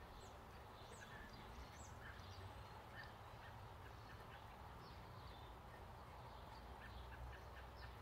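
Faint outdoor bird calls: many short chirps and calls scattered through, over a steady low rumble.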